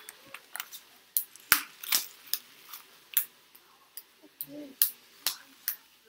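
Two small children clapping their hands: a run of sharp hand claps, unevenly spaced at about two to three a second.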